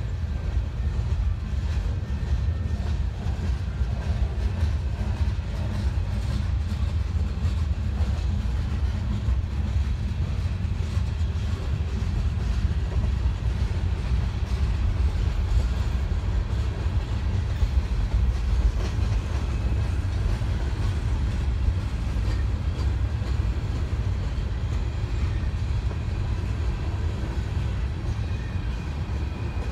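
Freight train rolling past, its cars making a steady low rumble on the rails, with a faint high tone coming in near the end.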